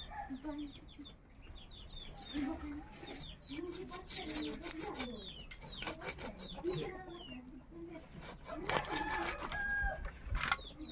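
Hens clucking in short, repeated calls, with sharp scraping clicks as fish scales are scraped off against the blade of a boti, a large knife fixed upright on a wooden base.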